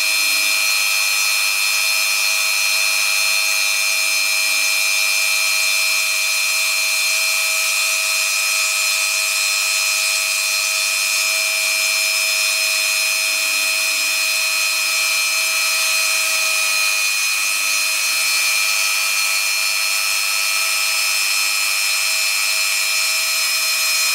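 Rotary tool mounted as the spindle of a mostly 3D-printed CNC router, running with a steady high-pitched whine as its bit mills an outline into green foam board.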